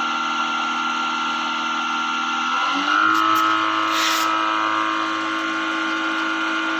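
AMR 500 supercharger aerator blower, belt-driven by a 1 hp three-phase induction motor on an inverter, running with a steady whine. Between two and three seconds in, its pitch glides up and settles higher as the inverter speed is raised to 30 Hz. A couple of clicks and a brief hiss come around three to four seconds in.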